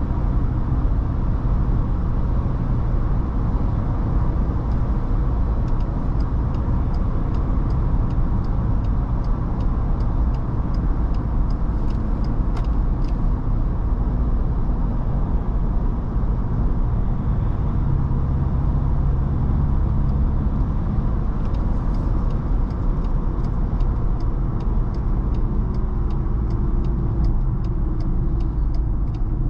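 Ford Ranger Raptor cruising at steady speed, heard from inside the cab: a steady low rumble of engine and road noise, with a light, regular ticking in two stretches.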